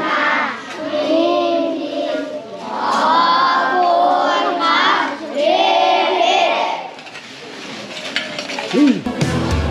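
A group of schoolchildren chanting together in unison, in sung phrases of a few seconds each. Near the end the chanting stops, and clinks of dishes and a low hum are heard.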